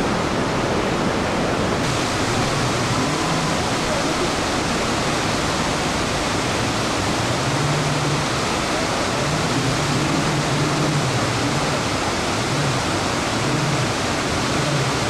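Iguazu Falls' water rushing steadily, a dense unbroken noise of falling water and churning river. From about three seconds in, a low wavering hum rises and falls beneath it.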